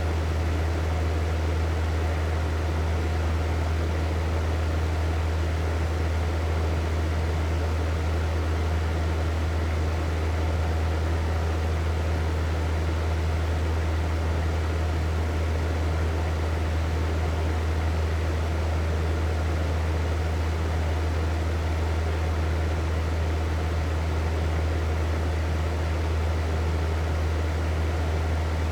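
Hair dryer running steadily, unchanging: an even rush of blown air over a strong, deep motor hum.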